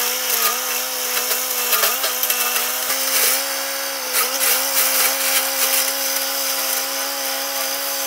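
LTZ T40 tractor running a rear-mounted flail mulcher: a steady drone of engine and spinning rotor with a hiss over it. The pitch sags briefly several times in the first half as the load comes on from the brush, then holds steady.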